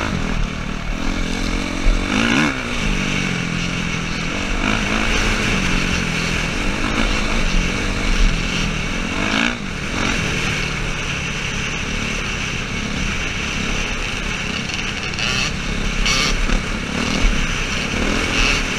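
Suzuki RM-Z450 single-cylinder four-stroke dirt bike engine running under way, its note rising and falling several times with throttle and gear changes, over wind rushing past the helmet camera.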